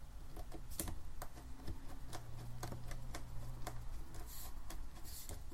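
Light, irregular clicks and taps of hands handling small parts at a laptop's display frame, as screws are set back into the LCD panel's mounts.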